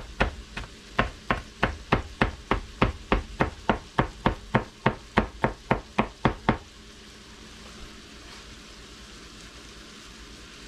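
Chef's knife chopping pickled jalapeño slices on a plastic cutting board: rapid, even knocks of the blade on the board, about three a second, stopping about two-thirds of the way through. A faint steady sizzle from the pot carries on after the chopping stops.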